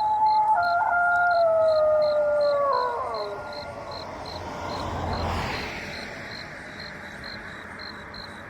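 An animal howling in the dark: one long drawn-out howl held on a steady pitch with a couple of sudden steps, sliding down and dying away about three seconds in. A rushing noise then swells and fades, under a faint high chirp repeating two or three times a second.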